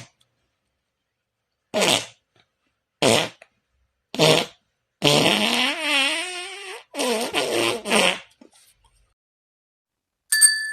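Imitation fart sound effects: three short blasts, then a longer one with a wobbling pitch, then a quick run of short ones.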